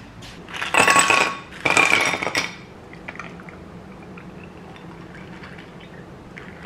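Ice cubes clattering into a stemmed glass in two loud bursts, the glass ringing, about a second in. Then milk poured from a carton over the ice, much quieter, for an iced latte.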